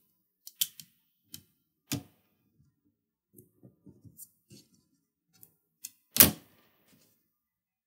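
Small clicks and taps of a laptop's copper heat-pipe and twin-fan cooling assembly being worked loose from the motherboard by hand. There is one sharp, louder click about six seconds in.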